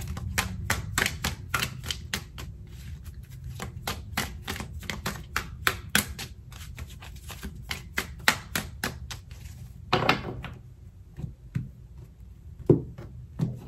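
A deck of tarot cards being shuffled by hand: quick clicks of the cards slapping together, about four a second, stopping a little before ten seconds in. Then a brief rustle and a few single taps as cards are set down on the wooden table, the sharpest near the end.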